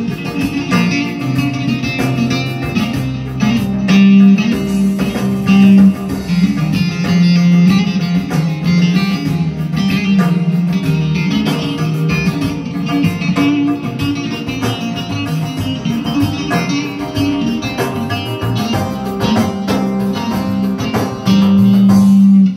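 Amplified long-necked saz lute played with a fast plucked melody, over sustained low notes.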